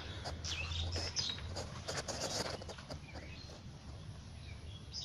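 Small birds chirping, short scattered calls one after another.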